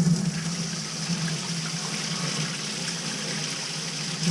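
Water running steadily from a tap while its temperature is checked, testing the hot-water output of a thermostatic mixing valve just adjusted.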